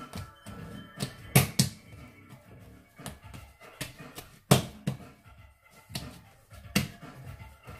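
Bread dough being kneaded and shaped by hand on a wooden chopping board, lifted and slapped down in a series of sharp thumps, with softer handling sounds between.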